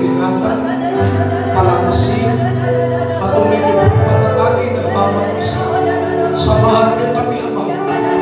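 Church worship music with held chords over bass notes and a few bright, crash-like hits.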